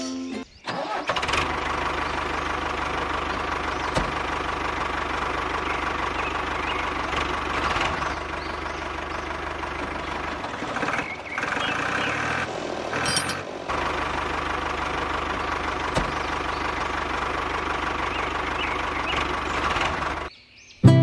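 A small motor running steadily, briefly faltering and breaking up near the middle before running on, then cutting off near the end.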